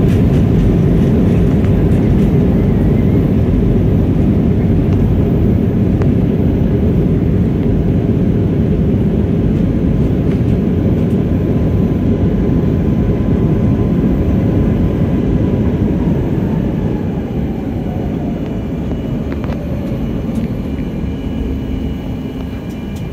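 Cabin noise of a Boeing 737 MAX 9 airliner on its landing roll: a loud, steady rumble of engines and runway that eases off in the last third as the jet slows, with a faint whine sliding down in pitch.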